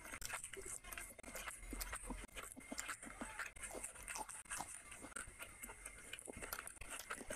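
Close-up eating sounds: a person chewing grilled chicken and biting into a raw green chilli, a steady run of short crunches and wet chewing clicks.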